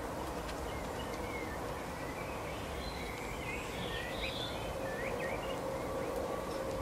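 Small songbirds twittering in short, quick chirps, thickest through the middle, over a steady background hiss and hum.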